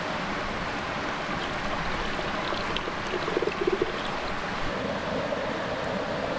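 Creek water running steadily, with a few short bumps of sound about three and a half seconds in.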